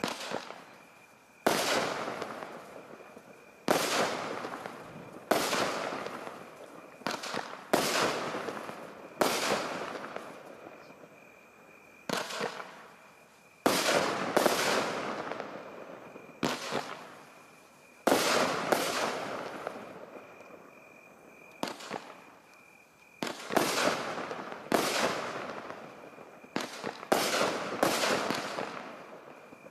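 Fireworks going off in a steady series of loud bangs, about one every one and a half to two seconds, each bang trailing off before the next.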